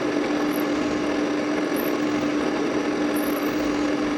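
Drill press motor running at a steady speed with a ball-making drill bit in the chuck: an even hum with a steady low tone.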